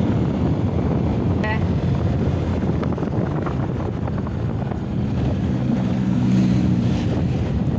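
Motorcycle riding along a road: engine running under steady wind noise on the microphone. A deeper engine hum swells in the second half as a pickup truck passes close by.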